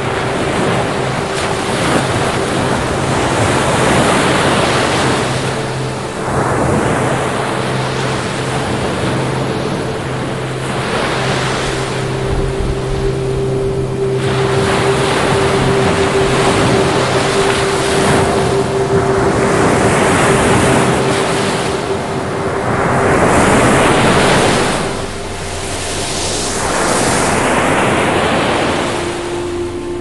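Ocean surf: waves breaking and washing in, the rush swelling and easing every few seconds. A faint steady tone hums underneath.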